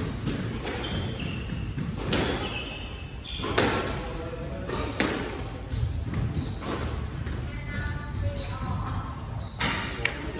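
A squash rally: the ball cracks sharply off rackets and walls every second or so, with short squeaks of court shoes on the wooden floor in between.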